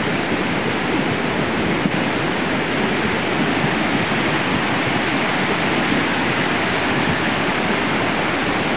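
Steady rushing of the Ujj River in full flood, a wide spate of muddy water.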